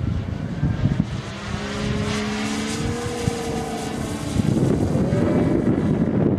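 Large-scale RC aerobatic plane's DLE 222 two-stroke petrol engine with canister exhausts and its propeller droning in flight. The engine note drifts up and down in pitch, then turns louder and rougher a little past four seconds in as the plane comes closer.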